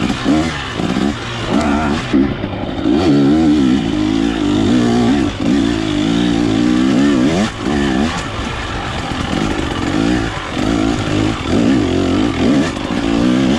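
Off-road motorcycle engine revving up and down over and over as the throttle is opened and closed, its pitch rising and falling every second or so.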